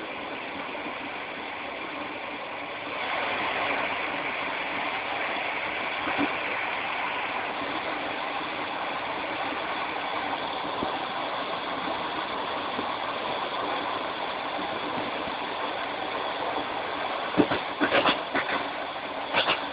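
Railway train running, heard from beside a carriage window: a steady rumble and hiss of wheels on rail, louder from about three seconds in, with a few sharp wheel clacks over the track near the end.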